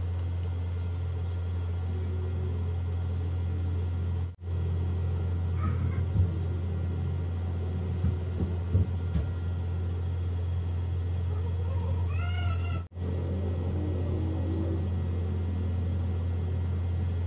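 A cat meows twice, a short faint call about six seconds in and a clearer rising-and-falling meow around twelve seconds in, over a steady low hum. A few soft knocks come around six to nine seconds in, and the sound drops out briefly twice.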